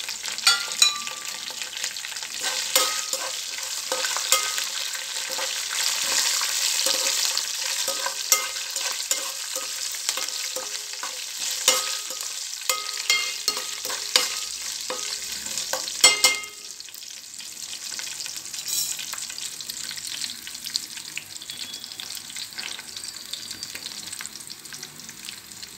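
Tempering spices sizzling in hot oil in a heavy kadai: curry leaves, dried red chillies, mustard seeds, cumin, dals and garlic frying, with sharp ticks and the scrape of a spatula stirring them. The sizzle is loud and busy for about the first two-thirds, then drops to a quieter, steady fry.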